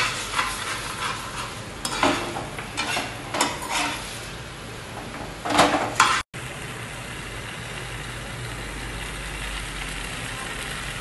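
A spoon stirring fried paneer cubes into thick Manchurian sauce in a pan over a gas flame: the spoon scrapes and knocks against the pan over a steady sizzle. After a brief cut-out about six seconds in, only the even sizzle goes on.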